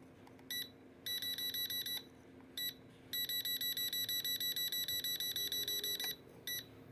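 Rapid electronic beeping from the drone set, a high tone pulsing about nine times a second in bursts that stop and start again several times.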